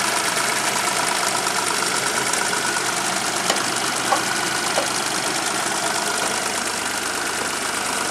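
A 1997 Geo Metro's Suzuki 1.0-litre three-cylinder engine idling steadily while still cold, heard close up with the hood open. A few faint clicks come in the middle.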